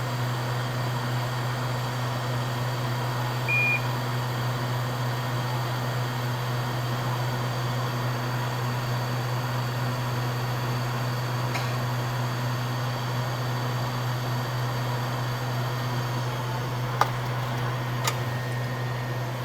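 Steady low hum and fan hiss of microsoldering bench equipment, with one short high beep a few seconds in and a few faint clicks near the end.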